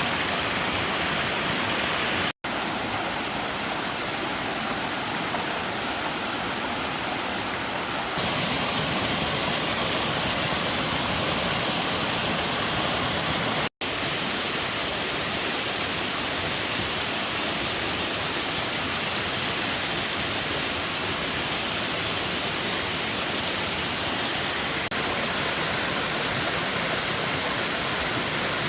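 Steady rushing water, like a stream or heavy rain, cutting out abruptly twice for a split second.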